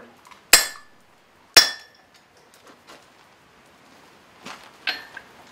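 Hand hammer striking a red-hot horseshoe laid across a hardy in the anvil's hardy hole, two ringing blows about a second apart, cutting the shoe almost all the way through. A few lighter metal clinks follow near the end.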